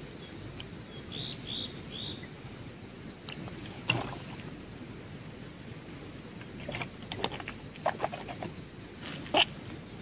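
Water splashing from a plastic bottle as a face is washed, then drinking from the bottle and the plastic bottle being handled and set down, a series of short sharp sounds with the loudest near the end. Three short high chirps sound about a second in.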